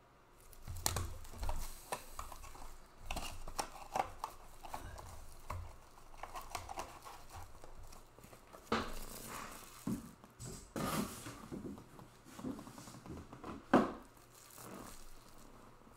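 Hand-handling noises of plastic: clear card holders and wrapping crinkling and clicking, in scattered short rustles and taps, with the sharpest knock about two seconds before the end.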